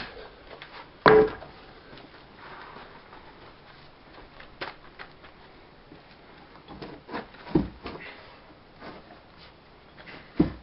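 Wooden knocks as the wooden arch-support form is knocked loose from under a brick kiln arch: one loud knock about a second in, then a few scattered lighter knocks.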